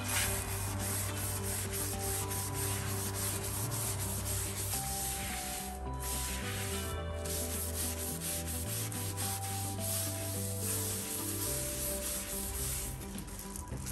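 Green scouring pad of a kitchen sponge scrubbing a rough-textured painted wall, a continuous scratchy rubbing made of quick back-and-forth strokes, with two short breaks about six and seven seconds in.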